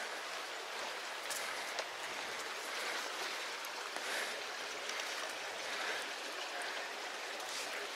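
Creek water flowing steadily.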